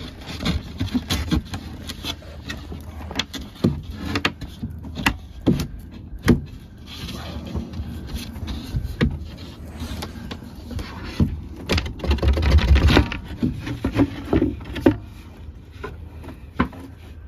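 Irregular knocks and clunks of wood and hand tools being handled. About twelve seconds in there is a louder, rougher noise lasting about a second.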